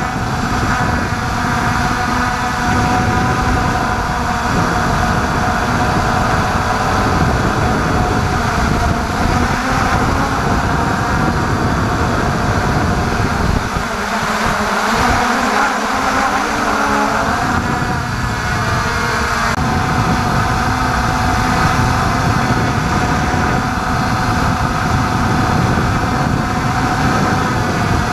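Brushless motors and propellers of an MJX Bugs 3 quadcopter running in flight, picked up by a camera mounted on the drone: a steady whine of several tones that shift in pitch now and then with the throttle, over a low wind rumble.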